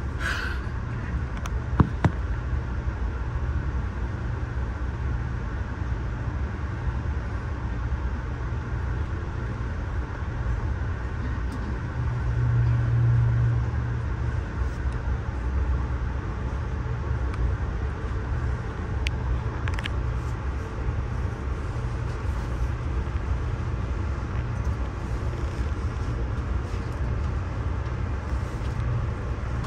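Steady low rumble of a Budd Amfleet passenger coach running at speed, heard from inside the car: wheels on the rails and car-body noise. There are two sharp clicks about two seconds in, and the rumble grows briefly louder around the middle.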